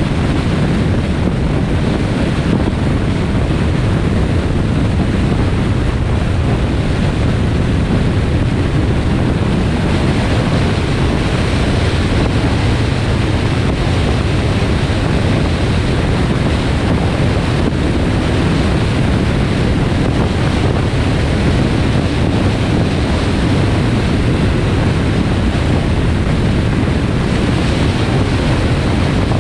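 A car driving at highway speed: steady wind noise buffeting the microphone over a low tyre and road rumble, unbroken throughout.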